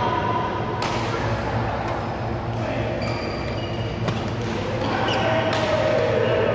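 Badminton rackets striking a shuttlecock during a doubles rally: a sharp crack every second or so, echoing in a large sports hall over a steady low hum.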